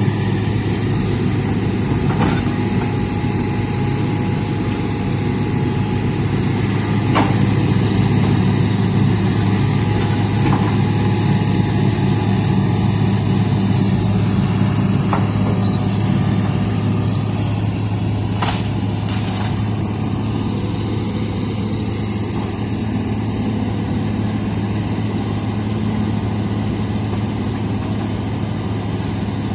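Hitachi excavator's diesel engine running steadily at an even pitch, with a few short sharp knocks now and then.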